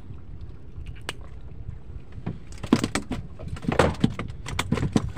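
Low wind rumble on the microphone. About halfway through comes a run of irregular sharp knocks and clicks, a few of them loud.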